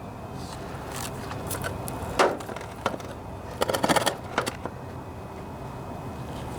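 A few sharp metal clinks and knocks as the trimmer's cutting head is seated and its mounting bolts are put in by hand, with a quick run of clicks about four seconds in.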